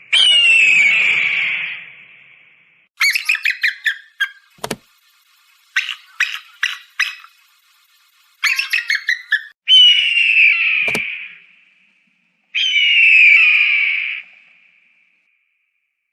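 Eagle calls: three long, hoarse screams that fall in pitch, alternating with quick runs of short, sharp chittering notes. Two sharp clicks cut in between calls.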